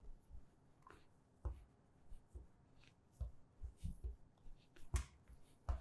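Hands pressing and gathering crumbly butter pie dough on a countertop: faint, irregular soft thumps and rubbing, coming more often in the second half.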